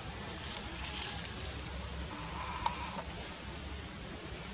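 Steady high-pitched insect drone, a cricket- or cicada-like trill that does not change, with a few faint ticks.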